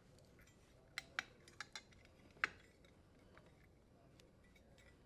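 About five faint, sharp clicks and ticks between one and two and a half seconds in, from plastic wire nuts and wires being handled as they are untwisted and separated at the dishwasher's terminal box.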